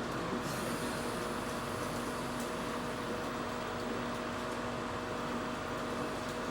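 Small electric bench fan running steadily, a constant whooshing drone with a low hum.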